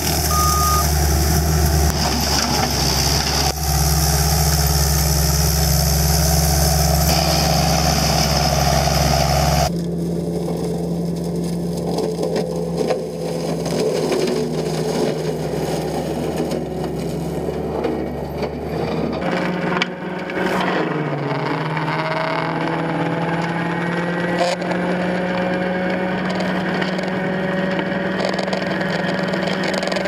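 Diesel engine of a CAT compact track loader running steadily at working speed, driving a Brontosaurus forestry mower head as it clears brush. The sound changes abruptly about ten seconds in, and the engine tone dips briefly and recovers a little after twenty seconds.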